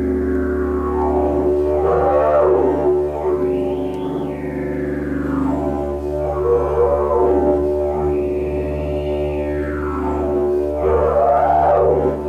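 Didgeridoo playing a steady low drone, its overtones rising and falling in a repeating sweep every two to three seconds.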